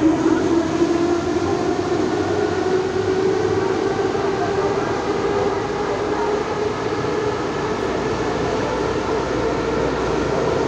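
Interior of a Soviet-built 81-71 metro car running through a tunnel: a steady rumble of wheels and rails under a motor whine that slowly rises in pitch as the train gathers speed.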